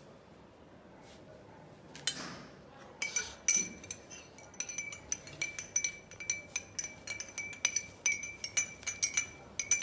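Steel spoon stirring in a glass of water, clinking quickly and irregularly against the glass with a ringing tone from about three seconds in, after a single knock about two seconds in.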